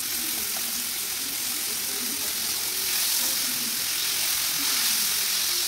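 Freshly added raw chicken pieces sizzling in hot oil in a kadai as they are stirred, a steady frying hiss that grows a little louder about halfway through.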